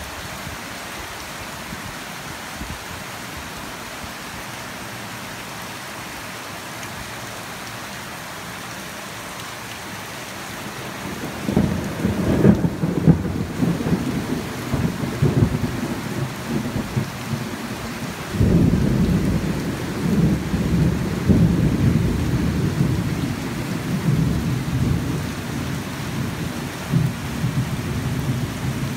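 Steady heavy rain falling, with thunder rumbling in about eleven seconds in and a second peal about seven seconds later that rolls on and slowly eases.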